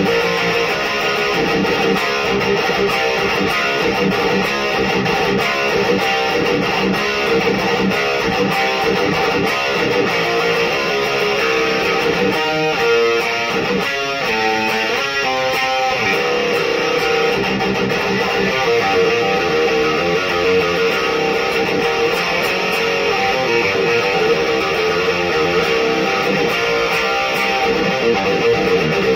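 Electric guitar played through a Black Cat Amps Djenttonic distortion pedal and an Electro-Harmonix 44 Magnum amp: heavily distorted metal riffing with chugging low notes. About halfway through, the riff changes for a few seconds to more separate notes.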